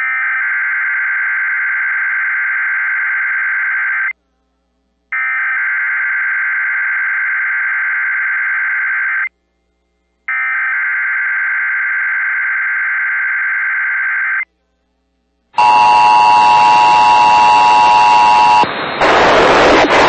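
Emergency Alert System SAME header: three identical bursts of warbling data tones, about four seconds each with a second's gap between them, encoding a hurricane warning for Puerto Rico. About fifteen seconds in, a louder, harsher steady two-tone attention signal with static starts.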